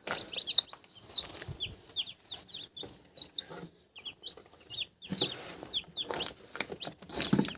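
Newly hatched chicks peeping: many short, high chirps falling in pitch, several a second, with a few soft knocks from handling.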